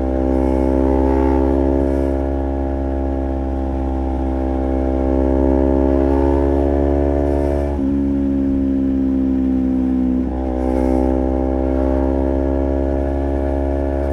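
Honda CBR250RR's parallel-twin engine pulling through its Project 79 slip-on exhaust, heard from the rider's position. It runs at a steady, slowly shifting pitch, with the note dipping sharply and recovering at gear changes about 8 and 10 seconds in.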